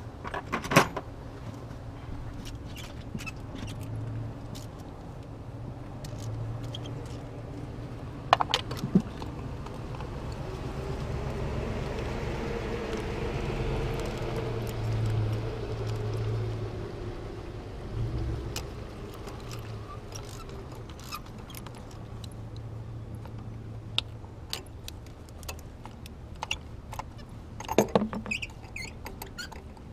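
Metal hand tools clinking as a ratchet, extension and spark plug socket are worked into the plug wells to loosen the spark plugs. There are a few sharp metallic clicks, less than a second in, about eight seconds in and near the end. Under them a steady low rumble swells and fades in the middle.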